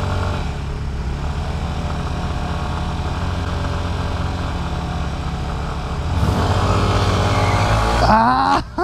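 SYM 125 cc scooter idling at a light, then from about six seconds in revving up as it pulls away, its engine pitch rising as it accelerates from a standstill.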